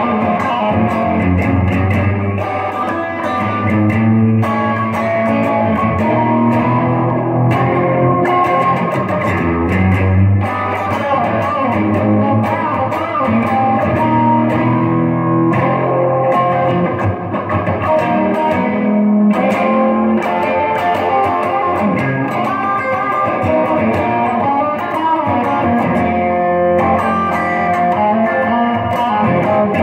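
Stratocaster-style electric guitar played without a break, its notes changing throughout.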